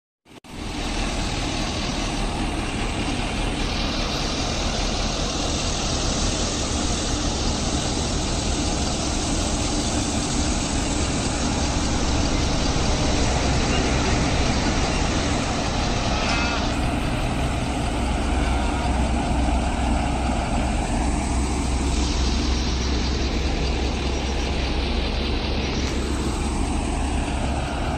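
Steady road and engine noise of a motor vehicle on a highway, with a deep low rumble.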